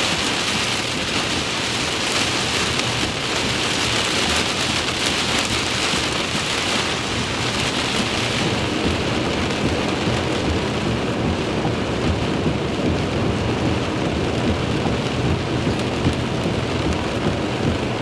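Steady rain in a severe thunderstorm, with a low rumble underneath. The high hiss of the rain eases about halfway through while the low rumble grows.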